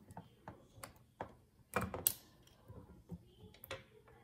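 Faint scattered clicks and ticks of fingers handling a plastic rubber band loom while fitting a small plastic S-clip onto the bracelet's end bands, with a louder cluster of clicks about two seconds in.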